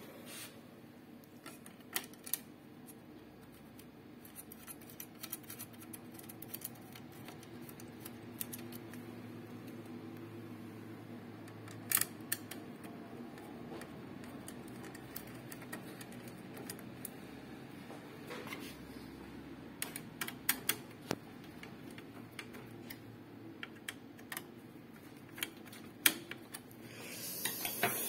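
Scattered clicks and light knocks of plastic and metal as the HP LaserJet P1005's main circuit board is fitted back onto the printer's side frame and its cables handled, over a faint steady hum.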